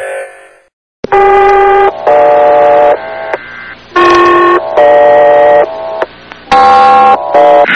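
Background music: the previous track fades out, there is a moment of silence, then a new track starts with loud sustained electronic chords. The chords come in short stop-start blocks that change pitch from one to the next.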